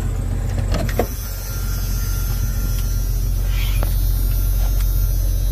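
Chore Jeep's engine running, a steady low drone, with a couple of light knocks about a second in.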